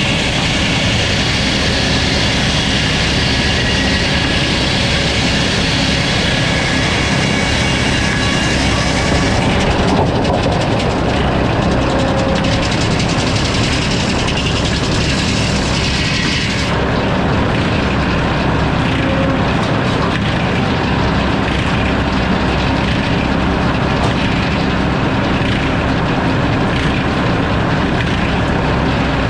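Sawmill running and its saw cutting through a hardwood log, a loud steady mechanical noise. The high-pitched cutting hiss weakens about ten seconds in and drops further past the middle, while the low engine and drive noise carries on unchanged.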